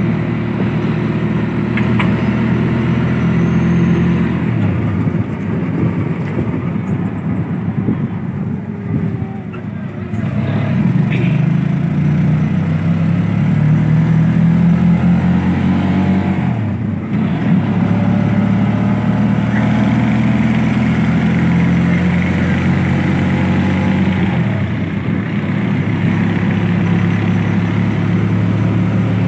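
Auto-rickshaw's small engine running, heard from inside the open passenger cab. Its pitch drops and climbs back several times as the rickshaw slows and picks up speed again.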